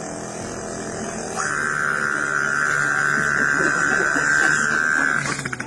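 A man imitating a running generator with his voice: a steady buzzing drone, joined about a second and a half in by a high steady whine, which breaks off into a short sputtering rattle near the end.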